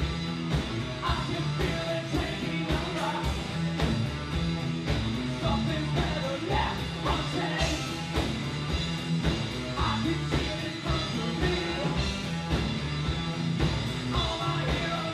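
Live band playing loudly: electric guitar over a steady drum beat, with shouted singing.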